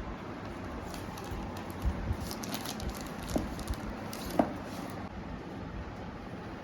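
Gift packaging being handled: faint rustling with scattered light clicks and taps, the sharpest about four and a half seconds in.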